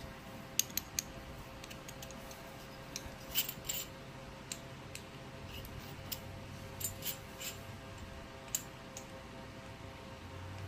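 Irregular light metallic clicks and clinks as small hand tools are handled, a steel thread tap being fitted into its tap handle. A faint steady hum runs underneath.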